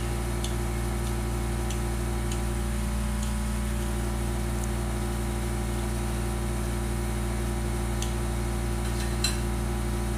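A steady low hum, as from a running appliance or fan, with a few faint light clicks as red chili peppers are cut into the pan. One slightly louder click comes about nine seconds in.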